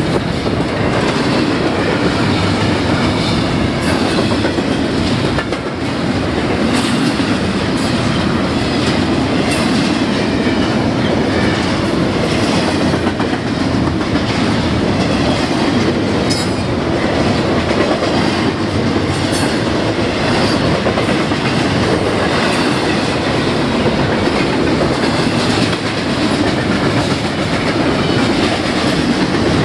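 Double-stack intermodal freight train's container well cars rolling past, a steady loud rumble of steel wheels on rail with occasional clacks over the rail joints.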